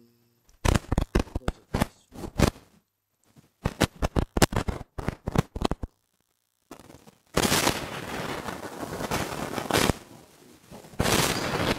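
Handling noise as the phone is gripped and shifted close to the microphone: a quick irregular run of sharp clicks and knocks, then a few seconds of scraping and rustling starting a little past halfway, and more rustling near the end.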